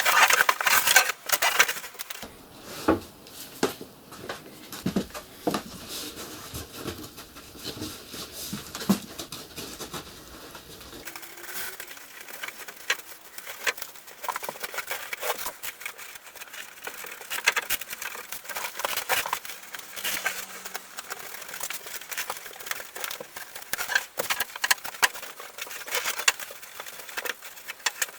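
Irregular light taps, scratches and rustling of hands handling and pressing headliner fabric onto the roof-lining board while it is being glued back on.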